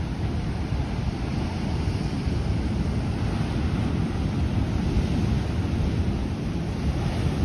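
Ocean surf washing over rocks, a steady churning wash with wind rumbling on the microphone.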